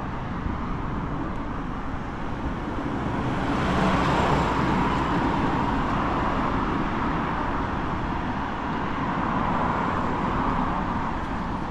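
Road traffic going by: a steady rush of tyre and engine noise that swells about four seconds in as a vehicle passes close, then stays up for most of the rest.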